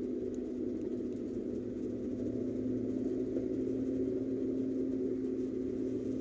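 Car driving on a paved road, heard from inside the cabin: a steady engine hum with a constant drone over road noise.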